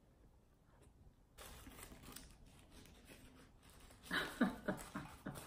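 Paper sandwich wrapper crinkling and rustling as it is unwrapped, with a run of louder crackles about four seconds in.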